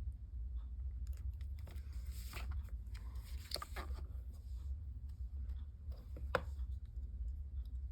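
Paper card pieces being handled and pressed into place: soft rustles and small taps, with one sharper click about six seconds in, over a steady low hum.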